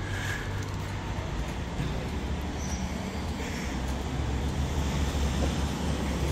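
Steady low rumble of street traffic, growing slightly louder near the end.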